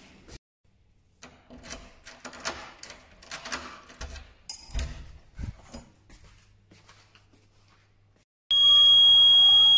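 Keys and a key turning in a door's lever-handle lock, with clicks and rustles as the door is unlocked and opened. About eight and a half seconds in, a loud, high, steady electronic tone starts suddenly, with faint falling sweeps beneath it.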